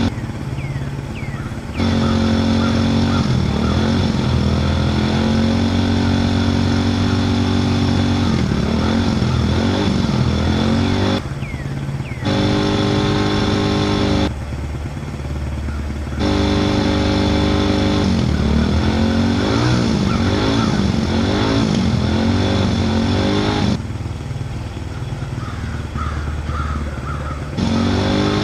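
A vehicle engine sound running and revving unevenly, its pitch wavering during the revs. It drops sharply in loudness and comes back several times.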